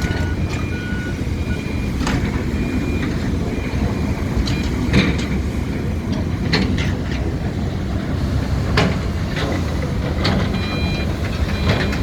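Excavator diesel engine running steadily under load while it works concrete, with irregular sharp clanks and knocks of concrete and steel. A machine's warning alarm beeps steadily at the start and again near the end.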